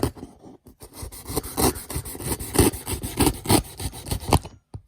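A knife sawing and scraping through a packaging box in a run of uneven strokes, stopping near the end.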